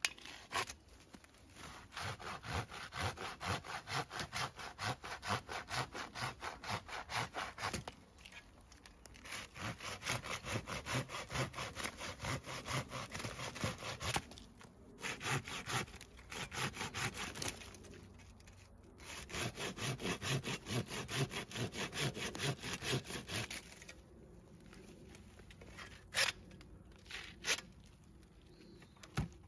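Corona 18-inch RazorTOOTH pruning saw, a coarse-toothed hand saw, cutting a dry old branch in steady back-and-forth strokes, about two a second. The strokes come in several runs with short pauses between them. Sawing stops near the end, and a couple of sharp knocks follow.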